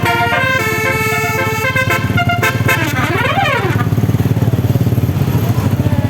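Basuri telolet horn, a multi-tone musical vehicle horn, playing a quick melody of shifting notes over a running engine, then one note sliding up and back down. From about four seconds in only the engine's low throbbing is left.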